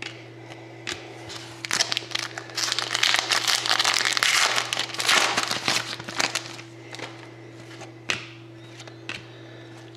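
Crinkling and rustling of plastic and card stock as trading cards are handled, with a dense stretch of crinkling in the middle and a few sharp clicks before and after.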